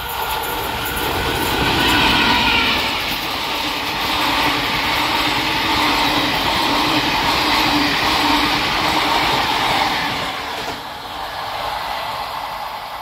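Express passenger train passing at speed on the rails: the rush of coaches and wheel noise builds over the first two seconds, holds steady, and eases off from about ten seconds in.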